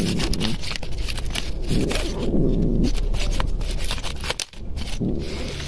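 A metal tin of wet cat food being scraped and tapped out onto a plate, a run of sharp clicks and scrapes.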